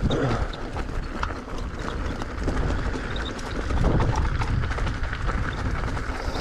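Mountain bike rolling fast over a rocky trail: tyres crunching on loose stones and the bike clattering with quick irregular knocks, over a steady low rumble of wind on the microphone.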